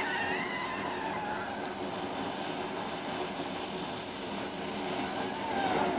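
A 36 V lithium battery pack burning after one of its cells was damaged, its flame and venting gas giving a steady hiss. A few whistling tones glide in pitch near the start and again near the end.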